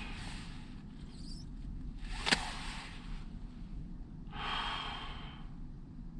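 A person breathing heavily close to the microphone, three noisy breaths or sighs, with one sharp click a little over two seconds in, over a low steady rumble.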